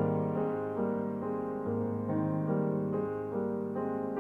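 Background piano music: a steady run of notes changing about every half second.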